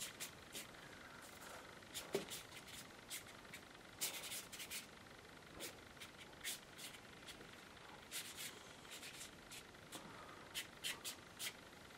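Faint, irregular scratchy strokes of a watercolour brush dragged across heavy Fabriano watercolour paper as a cloud wash is laid in, in short rasps with pauses between.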